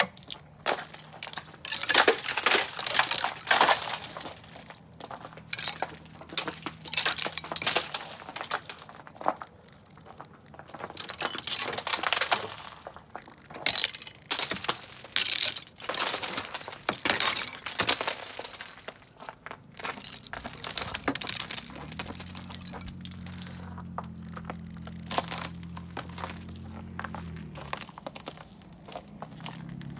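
Ice crunching, cracking and clinking in repeated irregular bursts. A low steady hum comes in about two-thirds of the way through and stops a few seconds before the end.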